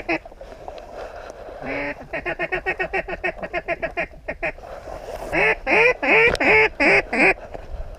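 Duck quacking: a fast run of short quacks, then a series of about six loud quacks that each drop in pitch.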